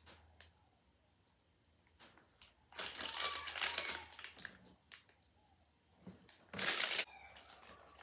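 A small plastic snack wrapper being torn open and crinkled by hand: a longer burst of crackling about three seconds in, then a short sharp crinkle near the end, with faint handling clicks between.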